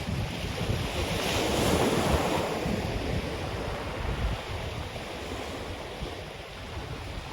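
Ocean surf washing onto a black sand beach, swelling about a second in and slowly fading, with sea breeze buffeting the microphone in low gusts.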